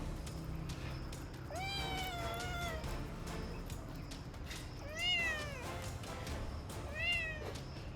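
A kitten meowing three times: a longer call about a second and a half in, then two shorter, arching meows about five and seven seconds in.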